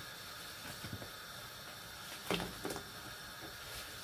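Pot of water at a rolling boil, a steady hiss and bubbling, with two short splashes a little over two seconds in as pieces of fresh pasta are dropped into the water.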